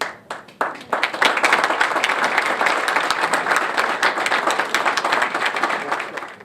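Audience applauding, starting with a few claps, swelling within about a second into full applause, then dying away near the end.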